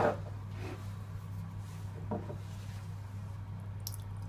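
Light knocks of a steel saucepan being handled, one at the start and a softer one about two seconds in, over a steady low hum.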